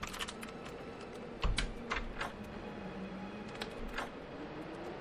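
Scattered, irregular light clicks and knocks, about eight in all, over a steady low background rumble with a faint low tone.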